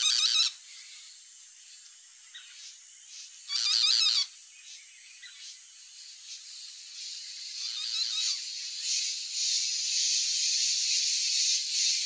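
Bird chirping in two short bursts of rapid, wavering high notes, one at the start and one about three and a half seconds in, over a faint high hiss. From about seven seconds a dense high chatter builds and gets louder.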